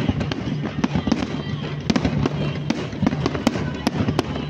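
Aerial fireworks bursting and crackling, with many sharp pops and bangs in quick, irregular succession and music playing beneath them.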